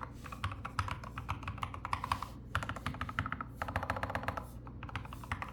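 Fast typing on a keyboard with wooden keycaps: rapid runs of key clicks with brief pauses between bursts.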